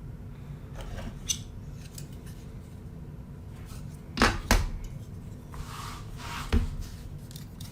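Plastic Lego pieces being handled and fitted together: a few sharp clicks, two close together about four seconds in, with a soft rustle of pieces around six seconds in.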